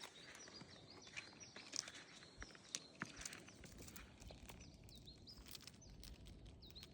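Faint outdoor bird chirping: small high calls repeated in quick runs, twice, with scattered light clicks between them.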